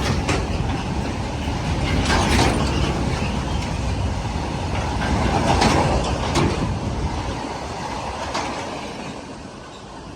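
Coal freight train rolling past, its wagon wheels rumbling with sharp clatters over the rail joints every second or two. The sound fades away near the end as the train moves off.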